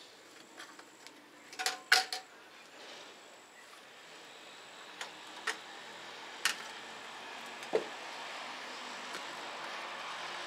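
Scattered sharp clicks and knocks of hand tools and aluminium frame profiles being handled and fitted together on a bench, the loudest a quick cluster about two seconds in, then single taps every second or so. A steady background noise grows louder through the second half.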